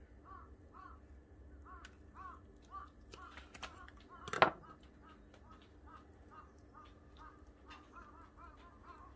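Birds calling over and over in short pitched notes, several a second, coming thicker near the end. Mixed in are small clicks of a knife on a wooden cutting board, with one sharp knock about four and a half seconds in.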